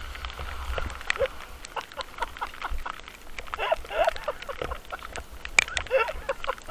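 Wind rumbling on a helmet camera's microphone, with scattered sharp clicks and knocks and short squeaky cries about halfway through and again near the end.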